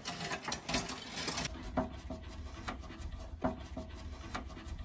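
Irregular light clicks, taps and rubbing as electrical cable and a screwdriver are handled against the sheet-metal box of a manual transfer switch.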